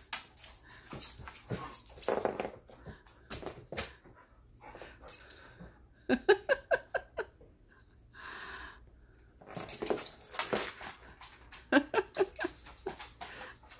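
A large dog whimpering and whining in short bursts, with a cat hissing back.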